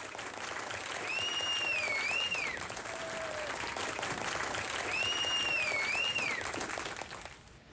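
Applause from an audience, with a two-note whistle heard twice, fading out near the end; a canned applause effect laid over the co-hosts' entrance.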